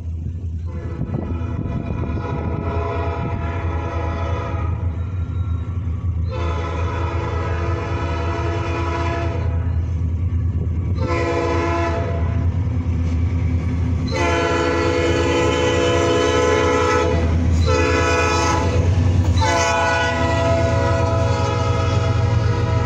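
Five-chime Nathan Airchime P5 horn on the Canadian National SD70M-2 diesel locomotive 8825 sounding a series of blasts for a grade crossing. There is a long blast, a shorter one, then long drawn-out blasts that run on to the end. Under it runs the low rumble of the approaching diesel locomotives, growing louder as they near.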